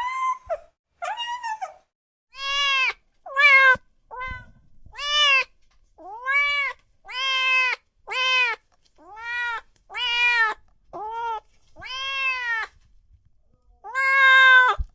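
Domestic cat meowing over and over, about one meow a second, each call rising and then falling in pitch.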